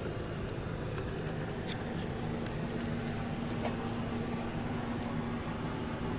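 A steady machine hum over background noise, with a steady low tone coming in about two seconds in and a few light clicks and taps in the middle.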